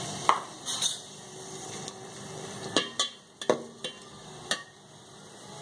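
Sliced onions and green chillies frying in hot mustard oil in a metal pot, a steady sizzle, with a metal spoon stirring and clicking against the pot several times, mostly in the second half.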